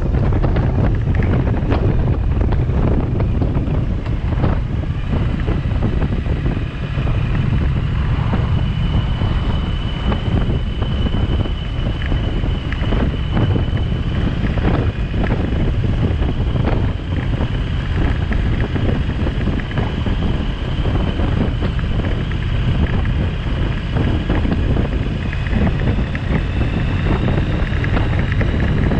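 Heavy wind buffeting on the microphone of a moving Triumph 900cc motorcycle, with the engine running steadily underneath at cruising speed. A faint, steady high whine sits above the rumble.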